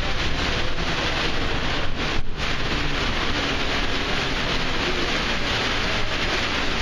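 Automated airport people-mover train running, heard from inside the car as a steady low rumble and rushing noise, with a brief drop about two seconds in.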